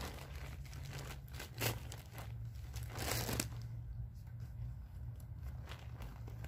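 Plastic rustling and crinkling as something is handled, with a louder crackle about one and a half seconds in and a longer one about three seconds in, over a steady low rumble.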